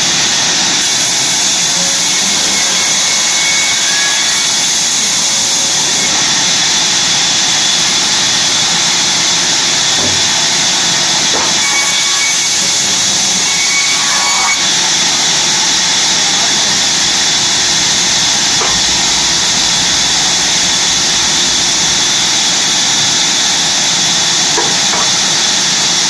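Sawmill saw running steadily, cutting wood: a loud, even, high rushing noise, with a few faint knocks about halfway through.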